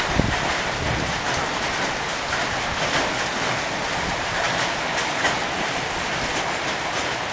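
Heavy downpour with hail: a steady roar of rain, dotted with many small sharp ticks of hailstones striking surfaces. There is a single dull thump about a quarter of a second in.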